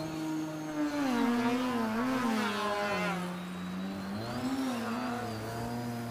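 Engine and propeller of a radio-controlled Edge 540T aerobatic model plane flying manoeuvres, its drone wavering up and down in pitch. It is loudest from about a second in, dips lower for a moment past the middle, then climbs again.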